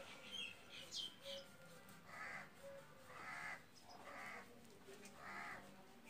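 A crow cawing, four harsh caws about a second apart, with a few short high chirps from smaller birds in the first second or so.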